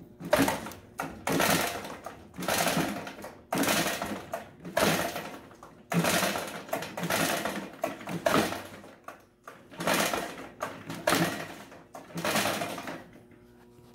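Backpack leaf blower's recoil starter cord pulled hard about eleven times, roughly once a second, each pull a rasping whirr of the cord and the turning two-stroke engine, which does not catch and run between pulls.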